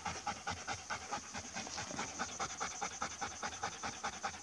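A dog panting rapidly and evenly, hard and out of breath after running a long chase.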